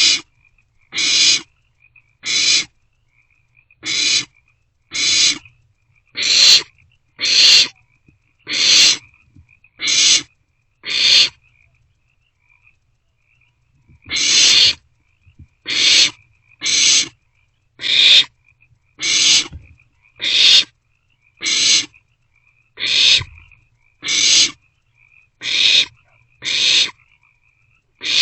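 Barn owlets making their hissing, snore-like food-begging calls, one harsh hiss about every second, with a pause of a couple of seconds near the middle.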